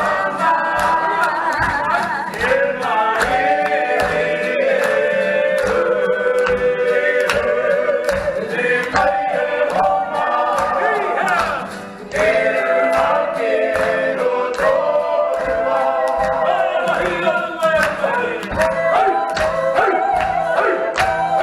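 A group of voices singing together in harmony over a steady rhythmic beat, pausing briefly about twelve seconds in.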